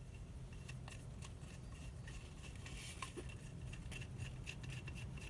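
Faint, irregular small clicks and scrapes of metal tools being handled at a workbench, several a second, with no motor running.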